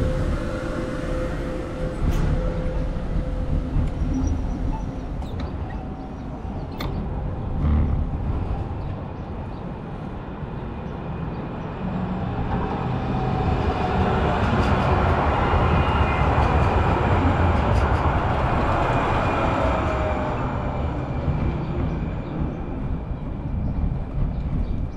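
Wind and road rumble from riding a bicycle, with a vehicle passing close by: a broad rushing noise that swells from about halfway through and fades toward the end.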